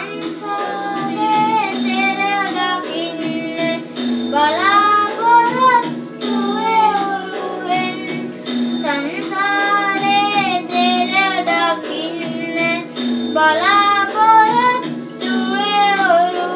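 Children's voices singing a melody over a steady instrumental accompaniment.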